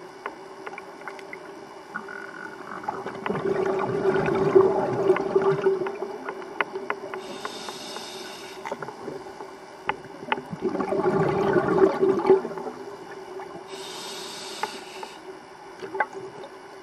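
Scuba diver's regulator breathing underwater: two long rumbling bursts of exhaled bubbles, each followed by a shorter, higher hiss of an inhaled breath through the regulator, with faint scattered crackles throughout.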